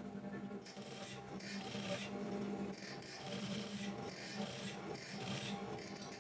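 Typical industrial sewing machine stitching a shirt collar, its motor hum rising and easing in short runs as the cloth is fed, with fabric rustling and rubbing under the hands guiding it.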